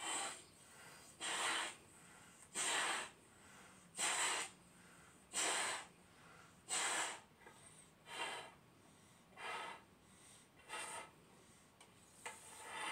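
A person blowing up two balloons by mouth through a shared tube, with loud breaths at a steady pace of about one every one and a half seconds, about ten in all.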